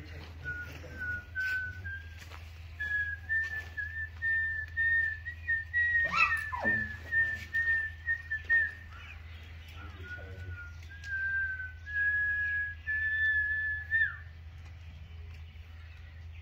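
A person whistling long, steady held notes with small wavers, in two stretches, the second ending in a quick downward flick. About six seconds in, a sudden sound slides sharply down in pitch.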